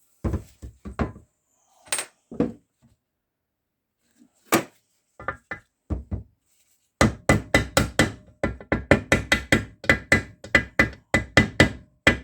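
Hammer blows driving a part home during reassembly of a Zundapp KS 600 motorcycle gearbox: a few scattered knocks, then from about halfway a fast run of taps, about four a second, with a metallic ring.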